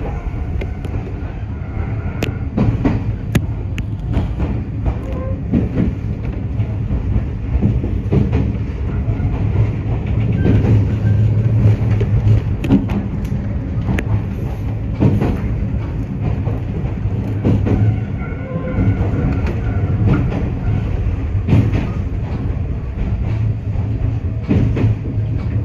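Iyotetsu 3000 series electric train running along the track, heard from inside the front car: a steady low hum of the moving train, with the wheels clicking over rail joints every few seconds.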